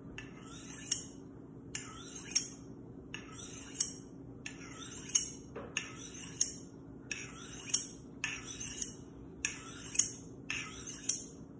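A paring knife blade drawn again and again along a Wüsthof honing steel: about ten short metallic scrapes, each with a sharp tick, in an even rhythm of roughly one a second, honing the edge. A faint steady hum lies underneath.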